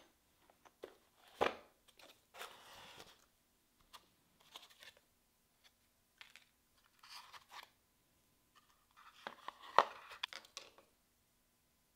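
A cardboard kit box being opened and its paper and parts handled: rustling and scraping of cardboard and paper in short spells, with a knock about a second and a half in and a louder sharp clack about ten seconds in as a part is moved or set down.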